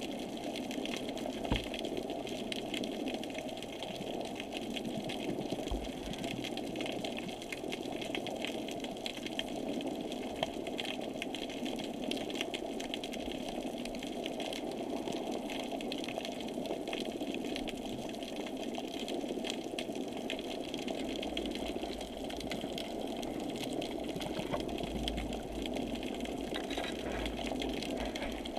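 Steady, even motor whir with a fast fine rattle, heard muffled underwater through a camera housing, likely from the platform's drive motors as it moves over the seabed.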